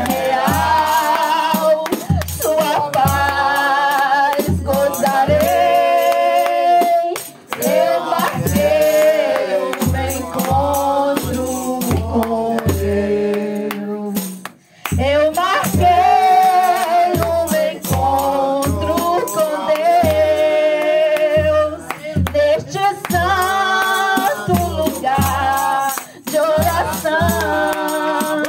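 A woman singing a Portuguese gospel hymn into a microphone, amplified through a loudspeaker, over accompaniment with a steady low beat and shaken rattle-like percussion. The singing breaks briefly twice, about a third and halfway through.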